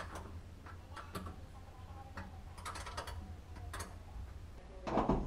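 Irregular light metallic clicks and taps as window-regulator bolts are handled and threaded by hand into a car's steel inner door panel, with a louder clatter near the end.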